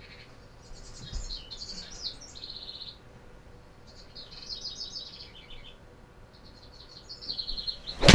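Birds chirping in short, rapid trilled phrases, several in turn. Just before the end, an 8-iron strikes a golf ball with one sharp crack, the loudest sound.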